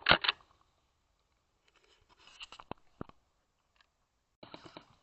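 Airsoft guns firing: two sharp shots at the start, a few scattered shots in the middle, then a rapid full-auto burst near the end.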